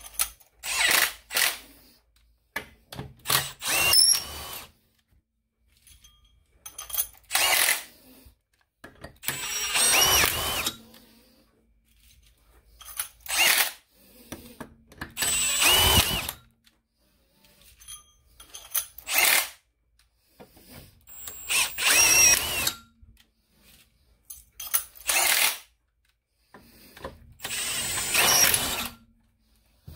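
Cordless impact tool with a stud tool on it, running cylinder studs into a two-stroke engine's crankcase in short bursts of about a second, a dozen or so, with pauses between as each stud is set.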